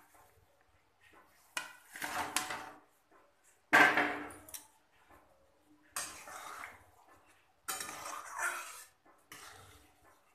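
Metal spatula and steel plate clattering and scraping against a steel kadai as fried fish pieces are pushed into curry gravy. It comes as a series of separate clanks and scrapes, the loudest about four seconds in.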